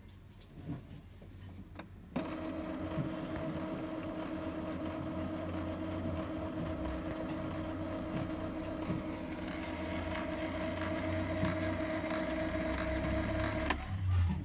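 Epson L3150 EcoTank printer's internal motor running steadily during Power Cleaning, a steady hum with a constant tone that starts suddenly about two seconds in and cuts off shortly before the end. It is the ink-flush cycle that replaces the ink in the tubes to clear clogged print-head nozzles.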